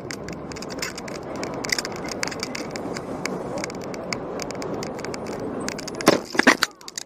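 Bicycle riding along a city street, its frame and handlebars rattling over the road with traffic noise around. About six seconds in, a cluster of loud knocks and scrapes as the bike hits an opening car door and goes down.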